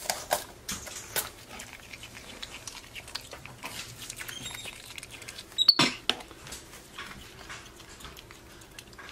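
Capuchin monkey chewing raw white bell pepper: irregular small wet crunches and clicks, with one louder crackling burst about six seconds in.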